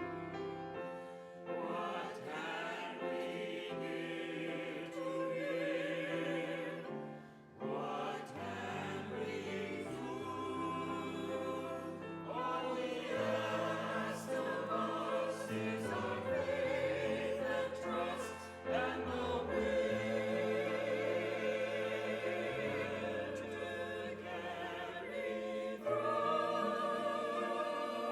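Voices singing sustained, vibrato-laden notes, with a low instrumental accompaniment holding notes that change in steps: church choral music.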